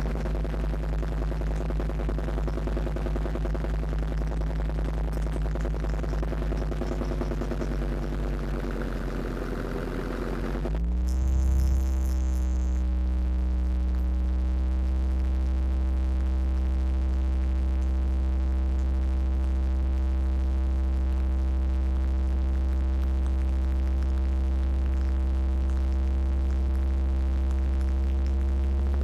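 Land Rover Defender Td5 five-cylinder turbodiesel, heard at its snorkel air intake, idling with a rough, rapid pulsing. About ten seconds in the revs rise quickly and then hold steady at a raised speed as a smooth, even drone. The owner is chasing a new knock at this intake, whose most likely cause he gives as faulty hydraulic lifters.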